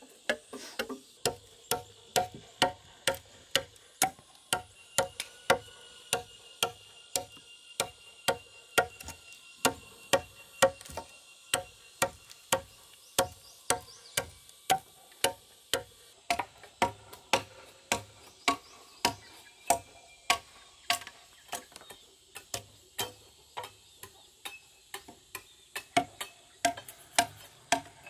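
Steel chisel blade chopping into a squared log beam by hand to smooth its surface: sharp, regular strikes, about two to three a second.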